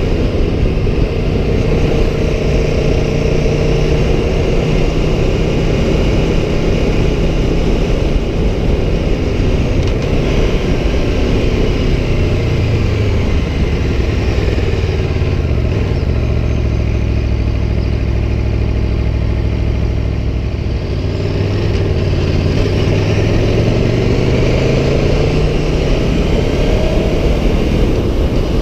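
Aprilia Tuono 1100 Factory's V4 engine under way. It runs steadily at first, drops in pitch as the bike slows about twelve seconds in, holds low, then climbs again as it accelerates from about twenty-one seconds.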